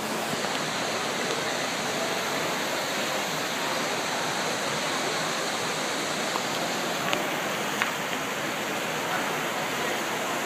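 Indoor fountain's water jets splashing steadily into its stone basin.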